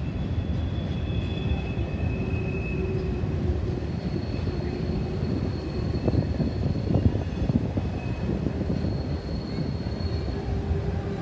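Freight train of double-stack container cars rolling across a steel railway bridge: a steady low rumble of wheels on rail, with a few sharp knocks about halfway through and faint high squeals from the wheels coming and going.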